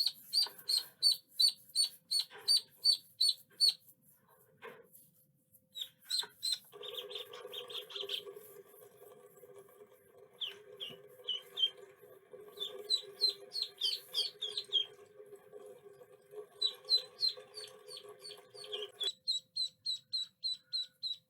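Ducklings peeping: quick, high, repeated peeps, about three a second, with a short pause early on. A steady hum runs beneath them for most of the middle and stops a couple of seconds before the end.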